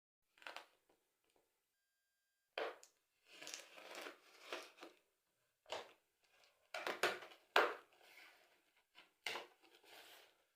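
Packaging being handled while a speaker system is unpacked: irregular rustling and scraping with several sharp knocks, the loudest a little past halfway.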